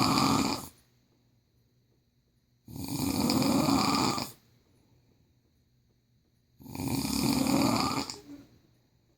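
Snoring in sleep, in slow regular snores about four seconds apart. One snore ends just under a second in, then two more follow, each about a second and a half long.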